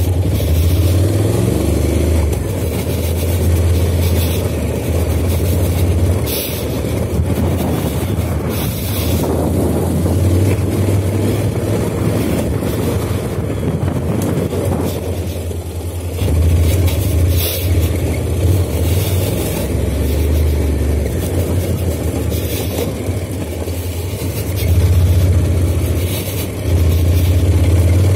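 2017 Honda NC750X's parallel-twin engine running under load while ridden over a sandy off-road track. Its loudness rises and falls in stretches of a few seconds as the throttle is opened and closed.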